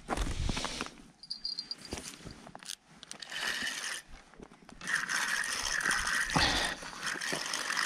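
Spinning reel on a bottom fishing rod being cranked from about five seconds in: a steady whir that swells with each turn of the handle as the line is wound in to check a bite. Before that, scattered clicks and rustles of the rod being handled.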